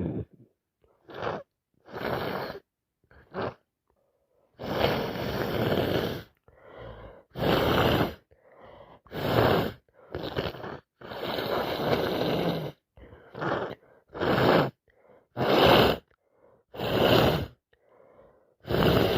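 A woman's nose and breath in an allergy fit: about a dozen gasping, sniffing and sneezing bursts with short pauses between, two of them longer. She puts the itching and sneezing down to allergies, though it could be the start of a cold.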